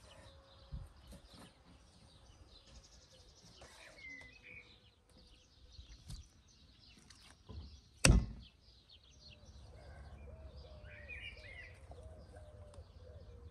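Small birds chirping in the background, with a few soft knocks as raw meat and a knife are handled on a wooden chopping board and a metal tray, and one sharp knock about eight seconds in.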